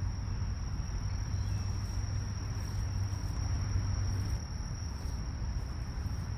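Steady high-pitched trilling of crickets in a woodland insect chorus, over a low background rumble.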